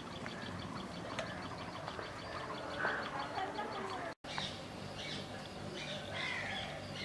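Assorted birds chirping and calling in short notes, over a steady low hum. The sound drops out completely for a moment about four seconds in.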